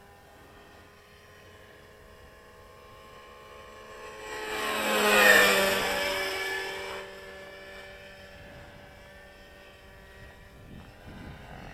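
Radio-controlled model helicopter flying past close by: its rotor and engine sound swells to a loud peak about five seconds in, dropping in pitch as it passes, then fades back to a steady distant hum.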